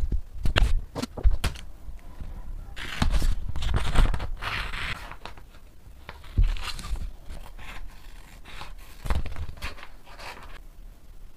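Scissors snipping paper and sheets of paper rustling as drawn paper cut-outs are cut out and handled. Sharp snips in the first second and a half, a longer rustle in the middle, and a couple of dull bumps later on.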